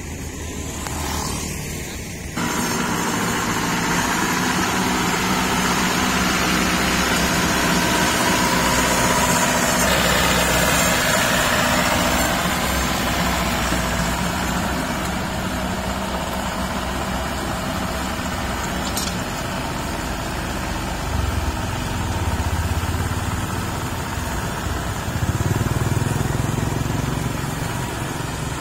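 Maxxi Bimo 102 rice combine harvester's diesel engine running steadily as it drives on its rubber tracks, growing louder about two seconds in.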